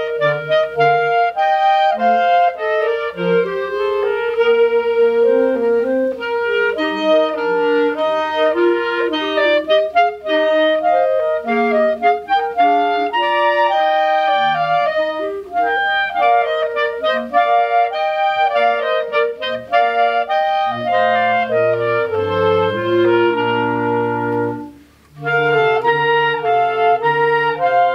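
A clarinet choir of B-flat clarinets and a bass clarinet playing a piece in several parts, the bass clarinet carrying low notes beneath the melody. The ensemble breaks off for a brief rest near the end, then comes back in.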